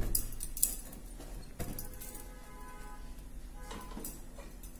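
Metal tongs clinking a few times as a chapati is turned and lifted over an open gas burner flame: a cluster of sharp clicks at the start, then single clinks about a second and a half in and near the end.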